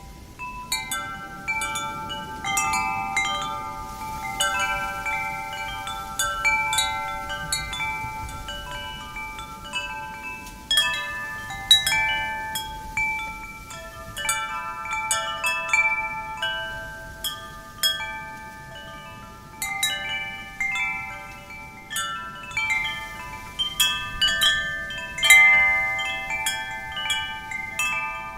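Metal wind chimes ringing in the wind, their tubes struck in irregular clusters of overlapping, long-ringing tones, over a faint rush of wind.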